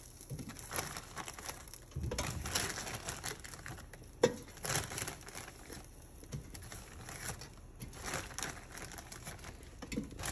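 Breaded butterfly shrimp being tossed into an air fryer's basket: irregular light rustling and clattering as the pieces are dropped in and moved around, with one sharp click about four seconds in.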